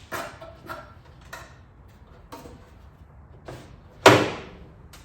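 Door glass of a Holden VK Commodore being worked out of the door shell: a string of short scrapes and knocks of glass against the door's metal, with one louder, longer scrape about four seconds in.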